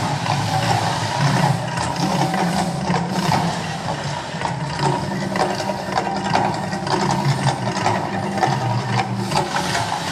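The Mirage volcano show's eruption: a steady, loud low rumble with rushing hiss and fast crackling on top.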